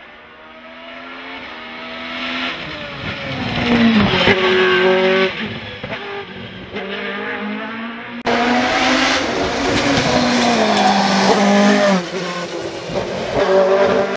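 Lola FA99 single-seater race car with a Cosworth engine at high revs, growing louder as it approaches and changing gear, with the revs dropping about four seconds in. About eight seconds in it suddenly becomes much louder and close, the revs falling in steps near the end as it slows, before cutting off abruptly.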